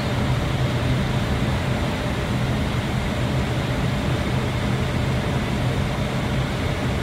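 Steady flight-deck noise of an Airbus airliner on approach: an even rush of airflow with a low, constant hum.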